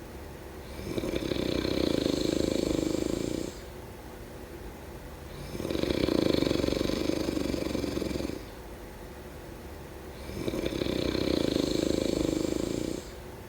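Slow, regular snoring: three long snores of about two and a half seconds each, roughly every four and a half seconds, with quieter breathing between them.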